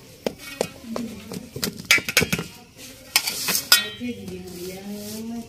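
A knife cutting a pizza in a round steel pan, its blade scraping and clicking against the metal in a quick run of sharp strokes. A person's voice comes in near the end.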